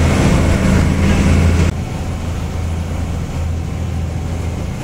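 Fishing boat's engine running with a steady low drone. About a third of the way in it drops suddenly to a quieter, duller level and carries on unchanged.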